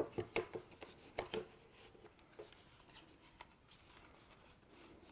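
Plastic sun hood being pressed onto a 7-inch camera monitor, its clip tabs snapping into the monitor's housing: a quick run of sharp plastic clicks and knocks in the first second and a half, then a few faint ticks of handling.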